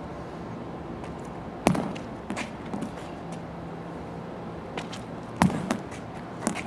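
Medicine ball hitting concrete: two sharp thuds about four seconds apart, the second the louder, with smaller knocks and scuffs between them, over a steady background hum.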